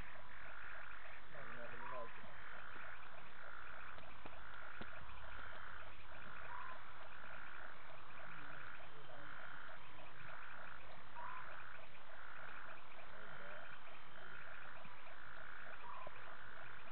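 Night chorus of frogs: one call repeating steadily about one and a half times a second over a fast, pulsing trill, with a short rising chirp every four to five seconds.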